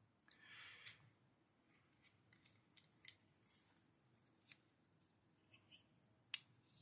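Faint handling of a knife being reassembled: a soft tissue rustle about half a second in, then scattered light clicks of metal parts, with a sharper click near the end.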